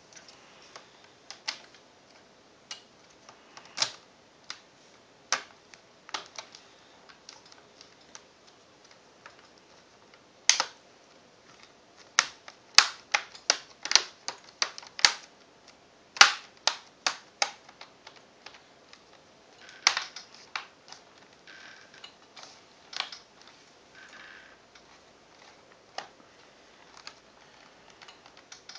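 Plastic screen bezel of a Toshiba Satellite L755 laptop being pressed back onto the lid, its snap clips clicking into place one after another, with a quick run of clicks about halfway through.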